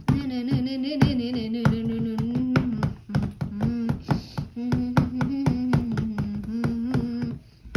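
A girl singing a rock tune in long held notes, in two phrases with a short break about three seconds in, over quick knocks of dolls' feet tapping on a wooden floor as she makes them dance. It stops just before the end.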